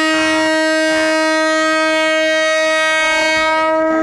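Train horn sounding one long, steady blast, the warning of a train coming along the track.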